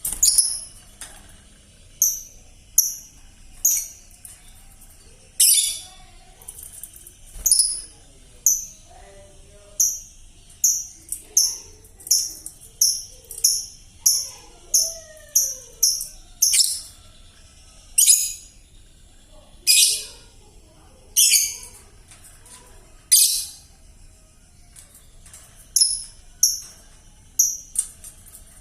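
Young lovebird, under five months old, chattering in short, sharp, high chirps, mostly one or two a second with some quicker runs; the call is still hoarse and raspy, as is usual at this age.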